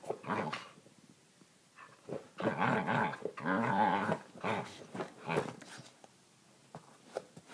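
An Australian Kelpie making funny growly vocal noises, in several bursts that bend up and down in pitch: a short one at the start, a long run of about two seconds in the middle, then a few short ones.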